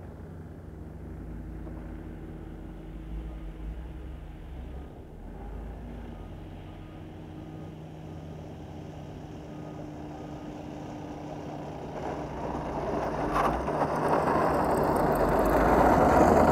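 RC aerobatic airplane's engine and propeller at low throttle as it comes in to land and rolls out on the runway, a steady low drone that grows steadily louder over the last four or five seconds as it nears.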